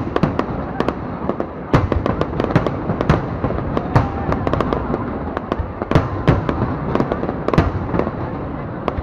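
A fireworks display: a dense, irregular run of aerial shell bursts and crackling pops, several bangs a second at times, over a steady background rumble.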